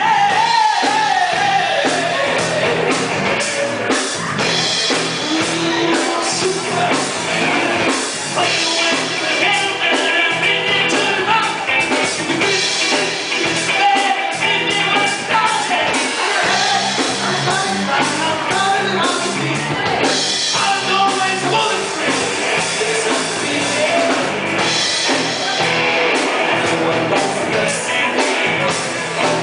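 Live hard rock band playing: a male singer over distorted electric guitar, bass guitar and a Tama drum kit.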